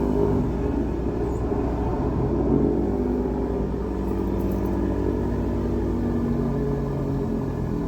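Sewer hydro jetter running steadily after being turned up, a steady engine drone with wavering tones, as it jets root intrusions out of a sewer line.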